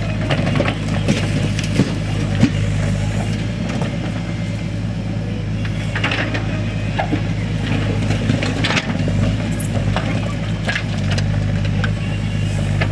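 Heavy diesel engine of a backhoe loader running steadily, with several sharp knocks and clatters over it.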